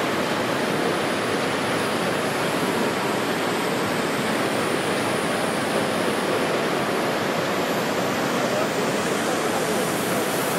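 Steady, loud hiss of steam escaping from a live steam model locomotive, with no change in level.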